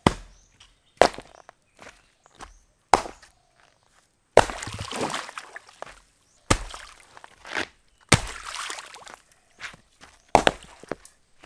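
Wood being chopped with a blade: about seven sharp strikes, one every second or two. Two of them, about four and eight seconds in, are followed by a second or so of rustling.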